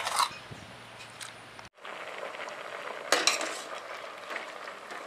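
Ash gourd pieces simmering in a steel pot, a steady bubbling, with sharp clinks of a steel ladle against the pot at the start and again about three seconds in.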